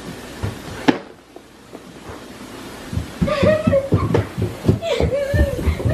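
A sharp knock about a second in, then from about three seconds a run of dull thumps of footsteps on carpeted stairs, with a child's wordless voice sounds over them.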